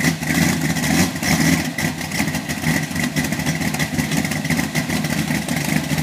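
1970 Corvette's 454 cubic-inch big-block V8 idling as it warms up, its exhaust beat pulsing slightly up and down.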